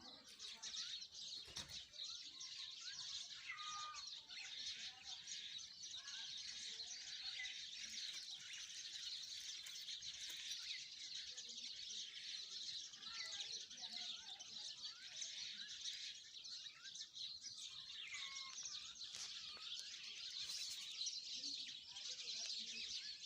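Many small birds chirping together in a dense, unbroken chorus, with occasional lower whistled notes standing out.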